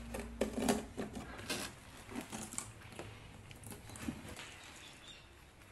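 Leafy branches and twigs rustling as they are handled, with scattered light clicks.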